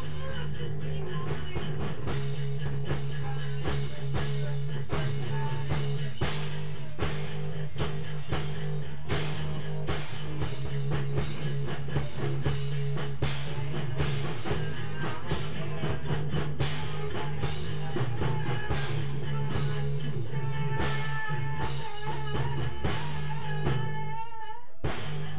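Live instrumental rock jam: guitar and drums playing over a low, steady bass line. The music briefly drops out near the end.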